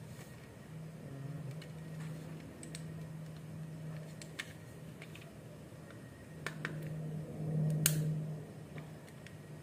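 Scattered small clicks and taps of a screwdriver and hard plastic parts as a car stereo mounting frame is worked on by hand, the loudest about eight seconds in, over a low intermittent hum.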